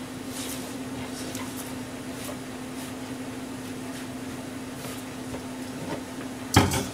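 Steady electrical hum of a kitchen appliance, with faint soft scrapes as chopped turnip greens are swept off a plastic cutting board by hand. A single sharp clatter near the end is the loudest sound.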